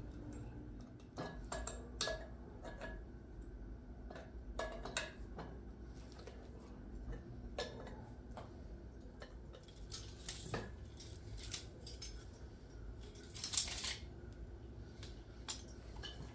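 Steel hand tools clinking and clicking against steel clamps and bolts as a wrench tightens the disc hiller shank clamps on a square-tube bedder frame. Irregular short metallic clicks, with a louder rattling cluster about three-quarters through.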